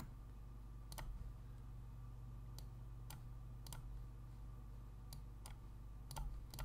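Computer mouse clicking, about seven short, sharp clicks spaced unevenly, over a low steady hum.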